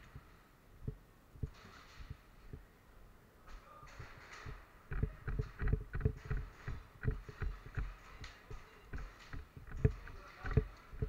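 Muffled low thumps and knocks from the player's own footsteps and gear close to the camera, a few at first and then coming fast and irregular from about halfway in, with two louder knocks near the end.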